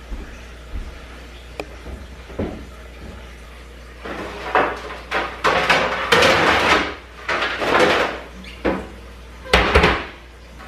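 Baking pans clanking and clattering as they are dug out of a lower kitchen cupboard, with a few light knocks first and then about six seconds of loud, irregular clatter from about four seconds in.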